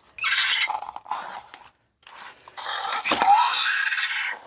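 Toy velociraptor's electronic screeches from its small built-in speaker: a short raspy call, then a longer raspy call starting about two and a half seconds in.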